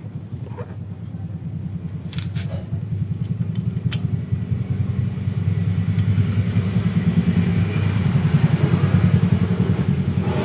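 A vehicle engine running with a low, even pulse, growing louder over the first several seconds, with a few light clicks about two to four seconds in.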